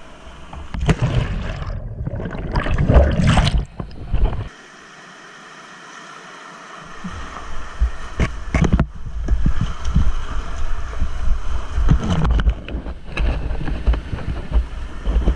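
Whitewater rapids rushing around a kayak, with water and wind buffeting the camera microphone into a deep rumble and paddle strokes splashing. It drops to a quieter, steadier rush for a couple of seconds around five seconds in.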